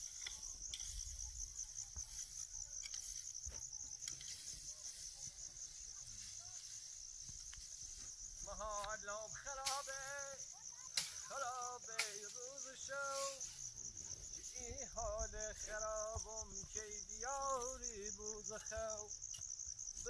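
Crickets chirping steadily. From about eight seconds in, a person's voice joins in long, drawn-out phrases, with a few sharp knocks in between.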